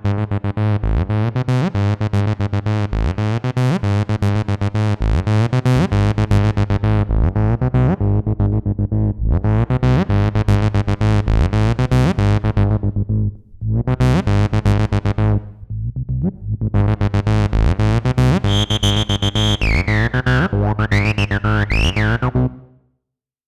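Behringer TD-3-MO analog bass synthesizer playing a fast sequenced acid bassline, short repeating notes with a squelchy resonant filter. High whistling glides come in near the end, and the pattern stops shortly before the end.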